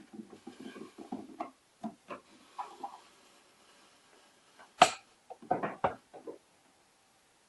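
Plastic housing of a Keurig coffee maker being handled: light rubbing and scraping of the top cover, then one sharp click about five seconds in, followed by a few short knocks.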